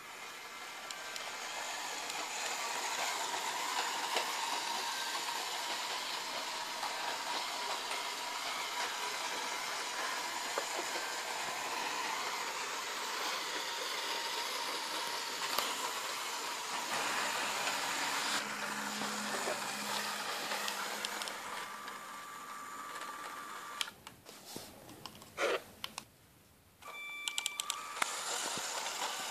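LEGO Power Functions M-motor driving a model tram around plastic track, a steady whir with the wheels clicking and rattling along the rails. Near the end it drops away for a couple of seconds, with a few sharp clicks.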